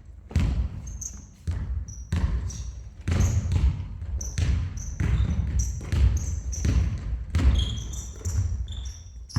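Several basketballs bouncing on a hardwood gym floor, about two bounces a second and echoing in the hall, with short high squeaks from sneakers on the court between them.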